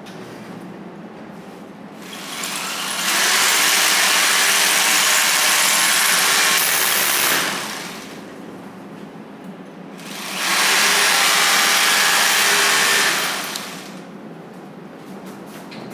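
Hilti hammer drill boring anchor holes into a concrete slab with a 12 mm bit. There are two long runs of drilling, each about four seconds, the first a few seconds in and the second about ten seconds in, with a quieter spell between.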